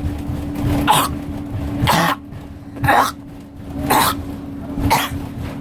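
A person coughing repeatedly, one short cough about every second, over a steady low hum.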